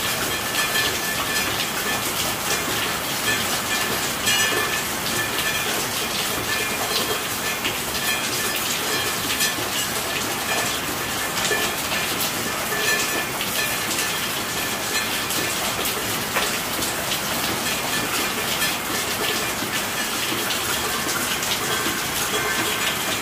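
Steady heavy rain: an even, dense hiss of many drops with fine individual drop ticks, unchanging throughout.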